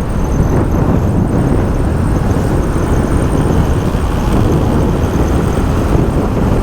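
Steady wind rush and engine noise of a moving motorcycle, the wind buffeting the rider's microphone.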